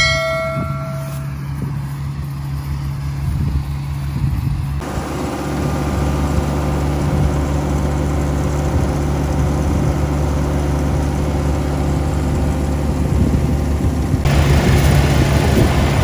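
Rice combine harvester engine running with a steady low hum, its unloading auger pouring grain through the middle stretch; the sound changes abruptly twice as the footage cuts. A short pitched chime sounds right at the start.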